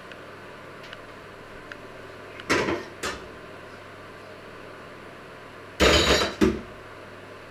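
Kitchenware clattering at a sink: a short clatter about two and a half seconds in, then a longer one of several knocks around six seconds in.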